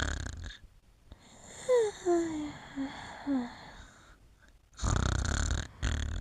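Soft snoring from a sleeper: one snore at the start and a longer one near the end. In between come a few short squeaky sounds, each falling in pitch.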